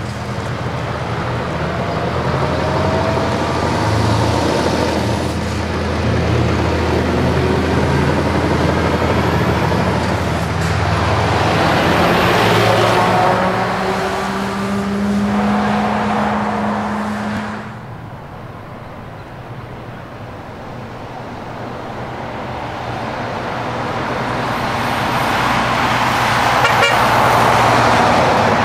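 Scania R-series semi-truck pulling away from a junction and driving close past. Its diesel engine runs under load, rising in pitch, and tyre noise peaks as it goes by. About two-thirds of the way through it fades, and a second truck, a tractor unit with no trailer, approaches and grows louder.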